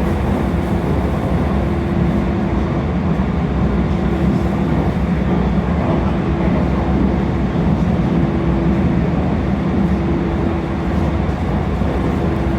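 Train running at speed: a steady rumble of wheels on track, with a low hum and a higher tone that fades in and out several times.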